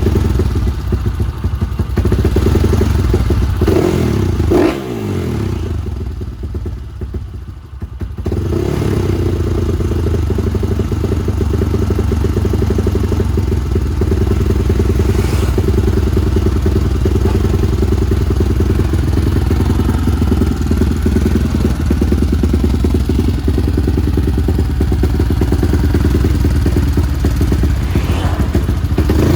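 Four-stroke trail motorcycle engine revving, its pitch falling away about four seconds in and dropping quieter for a couple of seconds, then running steadily.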